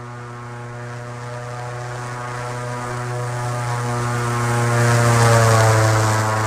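Radio-controlled Pitts Special model biplane's motor and propeller, running with a steady drone that grows louder as the plane approaches. It is loudest about five seconds in, then drops in pitch as it passes by.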